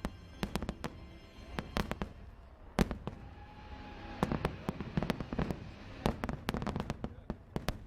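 Fireworks going off in quick succession, a string of sharp bangs and pops over a low rumble, with show music faintly underneath.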